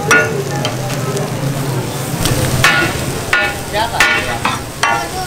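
Chicken frying and sizzling on a large flat tawa griddle while metal spatulas scrape and work it. From about two seconds in, a rapid series of sharp, ringing metal clangs as the spatulas strike the tawa.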